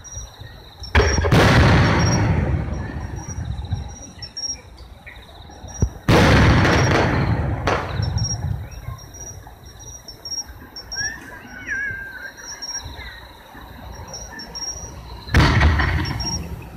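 Aerial firework shells bursting: three sudden loud booms, about a second in, about six seconds in and near the end, each trailing off over a second or two.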